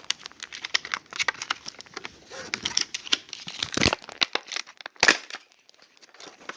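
Packaging being handled and pulled open by hand: crinkling and crackling, with two louder sharp cracks about four and five seconds in.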